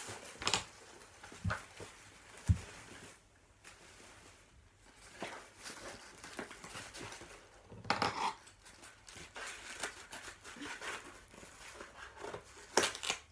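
Paper wrapping rustling and crinkling as a small wrapped gift is handled and unwrapped, with a few sharp knocks in the first seconds. Near the end, scissors snip through the ribbon.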